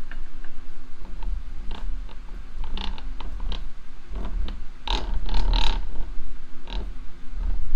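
Work on a cast-iron bench vise being taken apart: irregular metal clinks and knocks of tools and parts, with low thuds from handling the heavy vise, busiest around three seconds in and again about five seconds in.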